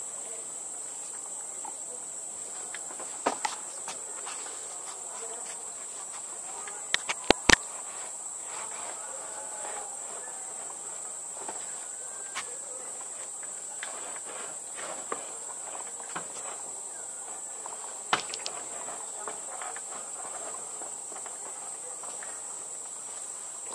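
Insects droning steadily at a high pitch in rainforest. A few sharp knocks cut in, the loudest a quick cluster about seven seconds in and another about eighteen seconds in.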